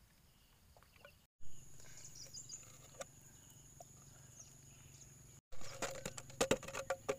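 Plastic water-bottle shrimp trap being handled: a few light clicks over a faint steady high tone, then from about five and a half seconds in, a rapid run of sharp plastic clicks and taps as the bottle is shaken to tip the caught shrimp and crabs out onto the ground.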